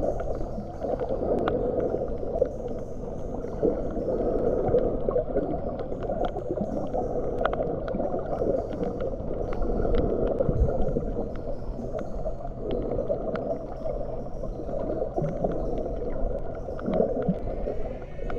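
Underwater sound picked up by a camera held below the surface while snorkeling: a muffled, steady rush of water with gurgling, and scattered sharp clicks throughout.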